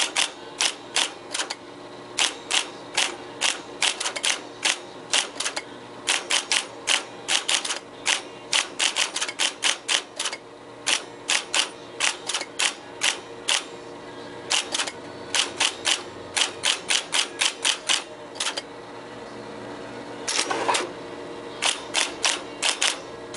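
IBM Correcting Selectric II electric typewriter typing: sharp clacks of the typeball striking, in irregular runs with short pauses, over the steady hum of its motor, with one longer mechanical whir about twenty seconds in. The machine is working properly after repairs to its power switch and cycle bail.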